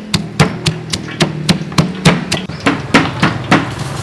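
Pestle pounding garlic cloves and sliced red chilies in a stone mortar: steady, even blows at about three or four a second.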